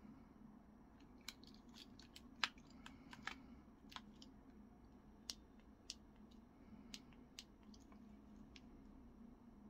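Light, sharp plastic clicks and taps from car smart-key fobs being handled and knocked together in the hand. They come scattered and irregular, the sharpest about two and a half seconds in, over a faint steady hum.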